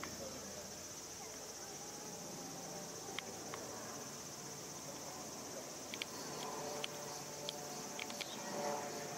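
Steady high-pitched chorus of insects, with a few short sharp clicks scattered through it.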